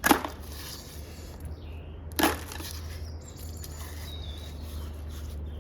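Two sharp knocks about two seconds apart, over a steady low hum.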